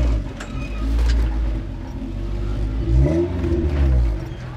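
Engine of a small Suzuki off-road 4x4 revving hard under load as it climbs a steep sandy bank. The revs surge and then drop away again about three seconds in.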